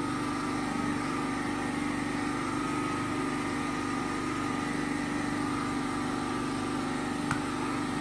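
Generator engine running steadily, a constant drone with a low hum; it is running because the mains power has gone off. A single light click sounds near the end.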